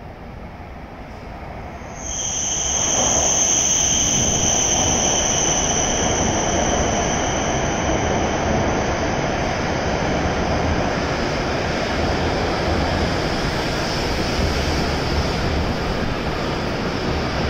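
E7 series Shinkansen pulling into the platform and slowing. A loud rushing, rolling noise comes in suddenly about two seconds in, with a high steady whine that fades gradually as the train slows.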